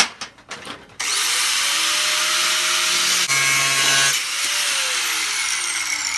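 Electric grinder switched on with a click, spinning up with a rising whine and grinding steel for about three seconds, then released and winding down with a falling whine.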